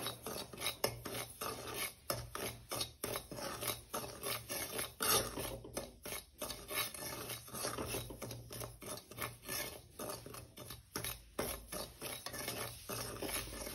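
Steel spoon scraping and stirring dry semolina around a metal kadai, a steady run of irregular rasping strokes as the semolina is dry-roasted on low flame.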